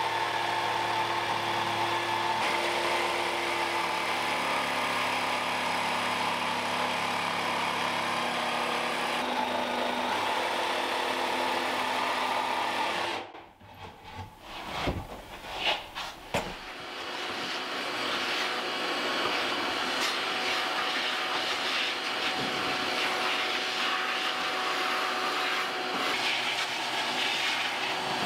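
Cordless jigsaw cutting a sink opening through a wooden countertop, running steadily with shifts in pitch, then stopping abruptly about halfway through. A few knocks follow as the cut-out piece is freed, then a vacuum cleaner runs steadily over the countertop.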